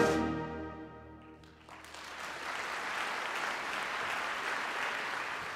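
A concert wind band's final sustained chord dying away, then the audience breaking into applause about a second and a half in, which keeps on steadily.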